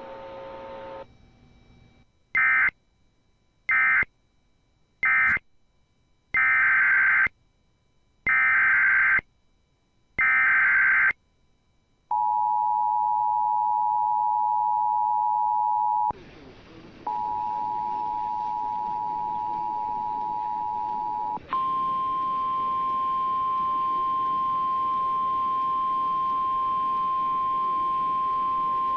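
Emergency Alert System signalling. Three short data bursts of the end-of-message code are followed by three longer data bursts of the header for the next alert. About twelve seconds in, the two-tone attention signal starts; near twenty-two seconds it changes to the single steady NOAA Weather Radio warning alarm tone.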